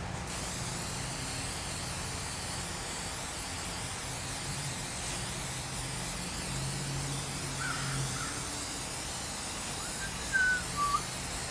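A steady hiss starts abruptly just after the start and runs on without a break, with a few short bird chirps in the last few seconds.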